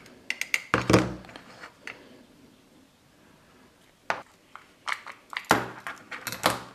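A small hammer tapping several times in quick succession within the first second on a wooden block holding a Märklin model freight wagon by its buffers, knocking its buffer beam out. After a quiet spell, light clicks and knocks of tools and small metal parts being handled and set down on a cutting mat.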